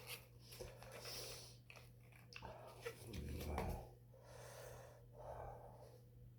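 A smoker's heavy breathing: several long, breathy in-and-out breaths. The loudest and deepest comes about three seconds in.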